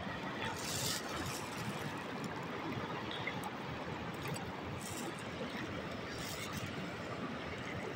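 Steady rushing of a river, with a few brief rustles of a plastic bag of soil and earthworms being handled.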